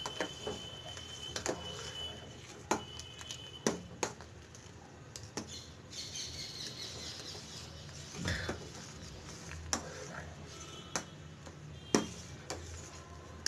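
Metal spatula stirring milk curdled with alum in a metal pot, clinking and scraping against the pot at irregular intervals, about a dozen knocks, the loudest about 12 seconds in.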